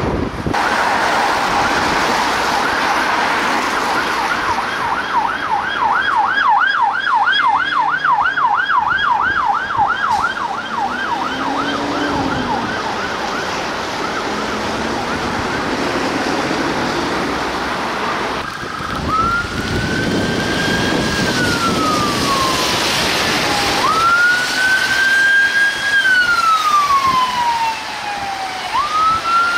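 Emergency vehicle sirens: first a fast warbling yelp of about three cycles a second, then, after a pause, a slower wail that sweeps up quickly and falls away over a few seconds, three times. A steady hiss of wind and traffic runs underneath.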